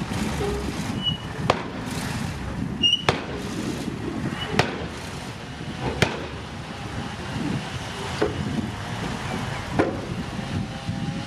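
Heavy earthmoving machinery working, with a steady rumble and sharp metallic knocks about every second and a half, six in all, and a couple of brief high squeaks in the first few seconds.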